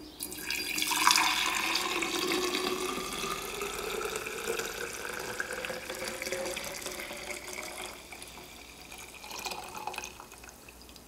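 Broth poured from a pot into a tall glass jar, the splashing stream rising steadily in pitch as the jar fills. The pour eases off about eight seconds in, with a few last trickles after.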